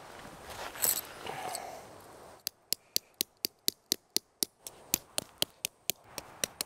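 Faint rustling and handling sounds, then about two and a half seconds in a clock-like ticking starts. It is sharp and very even, about four ticks a second, with the outdoor background gone silent behind it, like a ticking sound effect laid over a sped-up shot of tent pitching.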